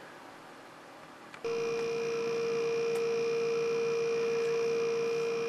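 A refrigeration-type compressor switching on about a second and a half in and running with a steady electric hum, pumping up the air cannon's tank toward its firing pressure of about 300 psi.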